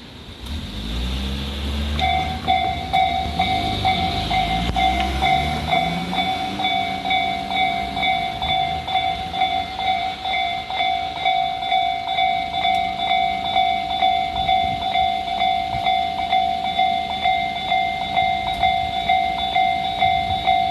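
Japanese level-crossing warning alarms start ringing about two seconds in, an electronic clang repeating evenly at about two strokes a second. Under their first few seconds a low engine rumble rises in pitch and then fades.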